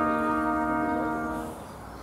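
Trumpets holding one long closing chord of a prelude, which ends about one and a half seconds in.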